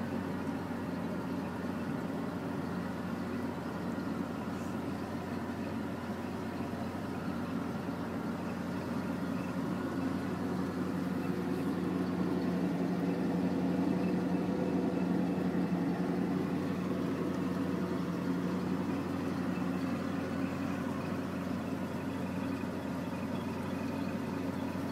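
Boat engine idling steadily just after a cold start, at about 1,000 rpm, growing a little louder around the middle.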